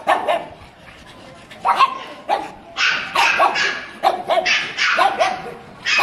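Pug barking in short, sharp barks. Two come at the start, then after a brief pause the barks follow in quick runs of two to three a second.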